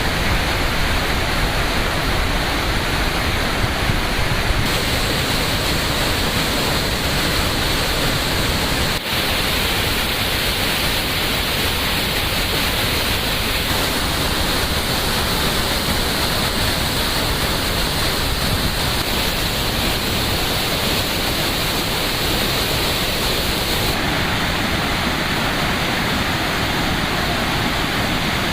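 Cauvery River in flood pouring over waterfalls: a dense, steady rush of water, with a brief drop about nine seconds in.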